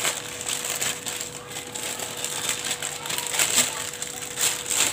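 Aluminium foil crinkling and crackling irregularly as it is folded and pressed around a block of pastry dough.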